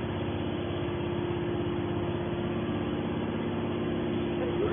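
Hydraulic can baler's power unit, its electric motor and pump, running with a steady hum.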